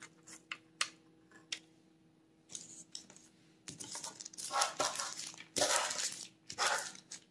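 Kitchen handling sounds on parchment paper: a few light clicks of chopped pecan pieces as candy is pressed into them, then from about halfway a run of louder scraping and rubbing as a utensil and fingers scrape sticky divinity candy across the parchment.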